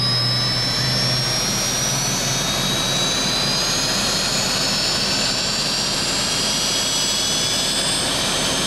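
The twin General Electric J85 turbojets of a Cessna A-37B Dragonfly running on the ground while warming up after start: a steady, loud jet roar with a high whine that slowly rises in pitch.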